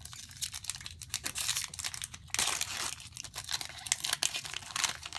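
Foil booster pack wrapper crinkling as it is handled and torn open, a dense crackling that thickens and gets louder about halfway through.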